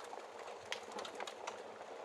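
Wood fire crackling in a fireplace: irregular sharp pops and snaps, several each second, over a steady soft hiss.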